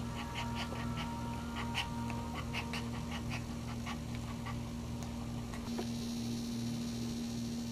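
Maltese dog in labour panting quickly, several short breaths a second, fading out about four to five seconds in, over a steady low electrical hum.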